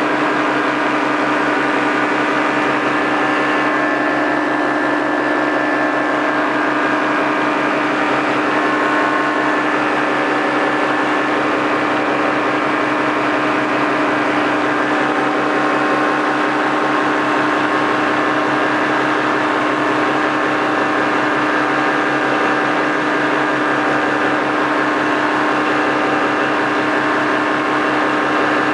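Paramotor engine and propeller running steadily at constant throttle, with an unchanging pitch.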